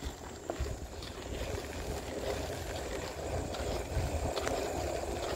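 Electric scooter rolling along a trail, wind buffeting the microphone and tyre noise growing louder as it picks up speed, with a few light clicks and rattles.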